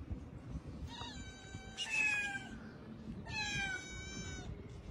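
Young tabby-and-white cat meowing three times, each meow falling in pitch, the third the longest.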